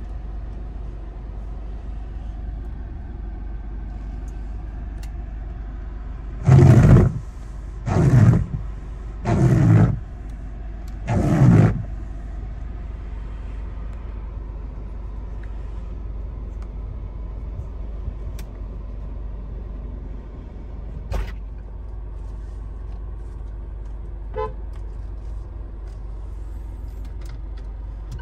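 Proton X70's car horn sounded four times in short toots, about a second and a half apart, heard from inside the cabin over a steady low hum.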